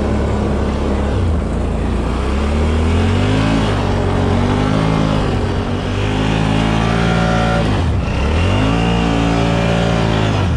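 Can-Am Outlander ATV engine revving hard through deep snow, its pitch rising and falling in several surges. It drops away near the end as the ATV bogs down in the deep snow.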